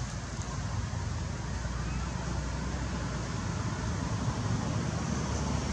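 Steady background noise with a continuous low rumble and an even hiss, with no distinct event standing out.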